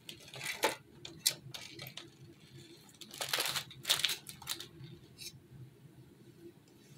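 Plastic bag crinkling and rustling in irregular bursts, with small foam balls pattering, as the balls are poured out of it and handled. The loudest bursts come about half a second in and again from about three to four and a half seconds.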